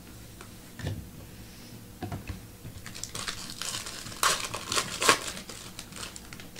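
Baseball card packs and cards being handled: wrapper crinkling and cards clicking and sliding against each other, busiest from about three to five seconds in.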